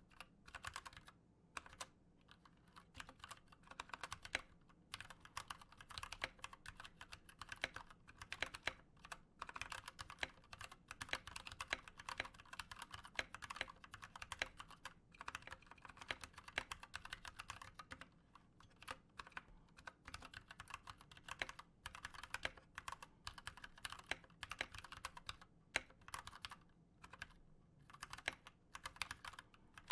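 Continuous fast typing on an Anne Pro 2 mechanical keyboard with stock, unlubed Gateron Brown switches, a dense run of key clicks broken by a few brief pauses. The keys sound pingy and rattly and the stabilizers vibrate, the sign of unmodded switches and stabilizers.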